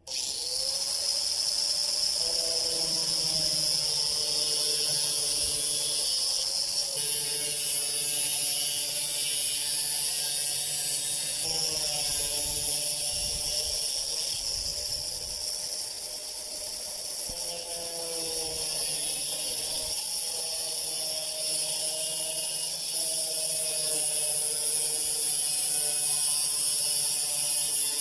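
Angle grinder with a carborundum blade cutting through vinyl siding. It spins up at the start, then runs with a steady motor whine and a hissing cut, its pitch shifting a few times as the load changes, and winds down near the end.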